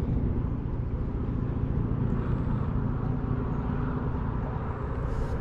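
Wind rumbling steadily on the microphone outdoors, a low, even noise with no distinct events.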